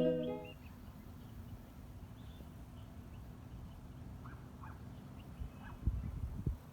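Faint bird chirps, a few short calls, over a low background rumble, with some low thumps near the end; intro music cuts off at the very start.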